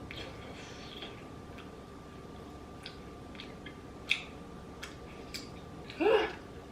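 Close-up eating sounds: sparse, sharp mouth clicks and smacks while chewing spicy noodles and rice cakes, with a short vocal sound falling in pitch near the end.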